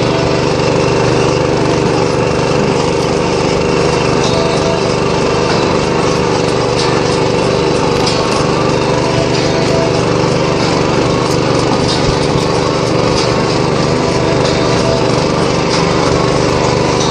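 Walk-behind tractor's small engine running steadily while under way, with a few light clicks and rattles.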